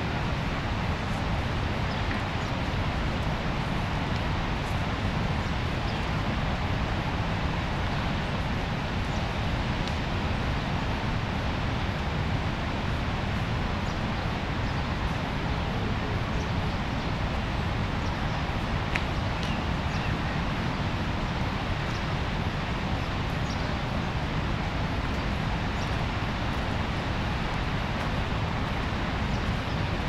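Steady rush of water from the Rhine Falls, a large river waterfall: an even, unbroken noise, heaviest in the low end.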